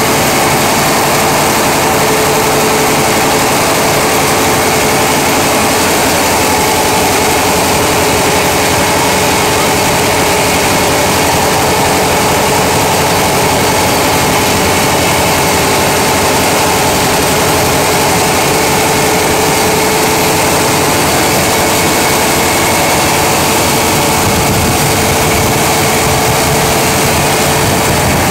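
Ferry boat's engine running steadily under way: a constant droning hum with a few steady tones, over an even rushing noise.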